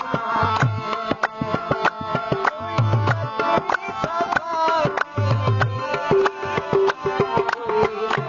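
Punjabi folk music in the dohre-mahiye style: a hand drum plays a quick, steady beat with repeated deep bass strokes, under a melodic line.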